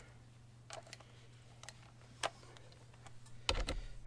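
A few faint clicks and taps as a cordless impact driver is handled and its socket fitted onto a battery terminal nut, over a faint steady hum. Near the end the Milwaukee impact driver starts to run with a low-pitched sound.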